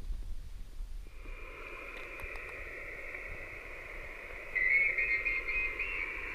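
Icom IC-706MkIIG HF transceiver's speaker hissing with band noise on voice sideband, starting about a second in. About four and a half seconds in the hiss grows louder, with a faint warbling signal in it.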